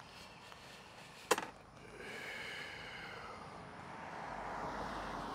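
A single sharp crack about a second in, then road traffic: a vehicle passes with tyre noise and a falling whine, and another comes up near the end.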